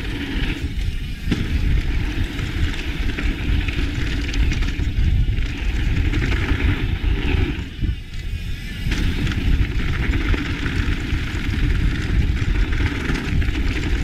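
Mountain bike descending a dry dirt downhill trail: wind rushing over a GoPro Hero 7's microphone and tyres rolling over packed dirt, a steady rumble that eases briefly about eight seconds in.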